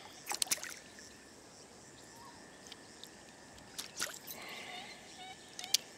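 A few sharp clicks and light knocks, a quick cluster just after the start, two more around four seconds in and one near the end, from a landed bass and fishing tackle being handled in a kayak.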